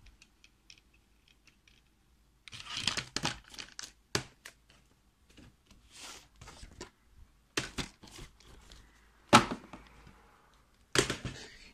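Plastic DVD cases being handled on a wooden desk: scattered clicks, knocks and rustles from about two and a half seconds in, with a sharp clack about nine seconds in.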